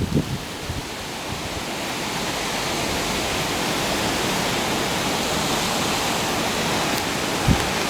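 Strong, gusty wind rushing through trees: a steady hiss that builds over the first few seconds and then holds, with a brief low buffet of wind on the microphone near the end.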